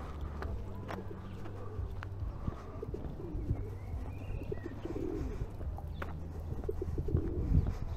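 Pigeons cooing several times, with a low steady hum underneath for the first few seconds.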